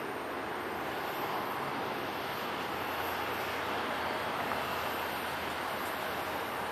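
Airbus A340-300's four CFM56 turbofans at takeoff thrust as the jet lifts off, a steady distant roar.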